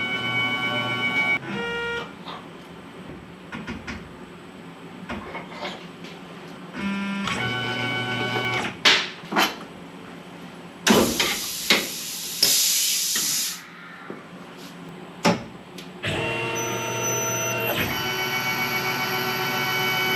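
CNC mill's stepper motors whining in short runs as the machine's axes move, each run starting and stopping abruptly. A few sharp clicks and a couple of seconds of harsh, hissing noise come around the middle.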